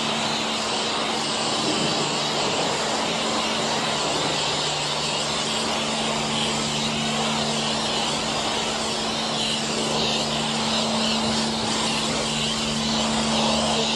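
Self-service wash-bay pressure lance spraying foam onto a motorcycle: a steady hiss of spray over the steady hum of the pump.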